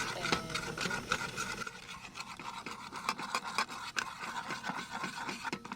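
Cooking utensils scraping and clicking against a pan in quick, irregular strokes, over a faint steady hiss.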